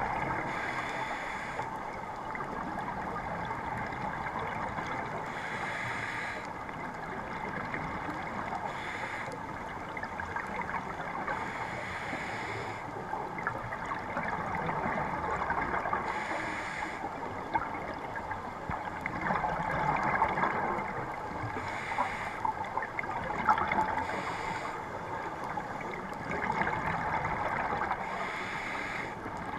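Scuba breathing heard underwater through a GoPro housing: a regulator hisses with each inhale every few seconds, and between breaths the exhaled bubbles gurgle and bubble.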